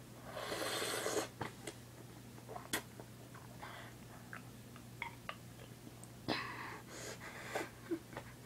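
A person huffing breath in and out through the mouth around an ice cube held in it, to cope with the cold. There are two long breathy huffs, one just after the start and one about six seconds in, with small mouth clicks between.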